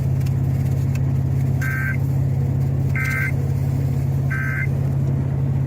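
Emergency Alert System end-of-message signal: three short, identical bursts of two-tone digital data warble, about a second and a half apart, marking the end of the alert. A steady low hum runs under them.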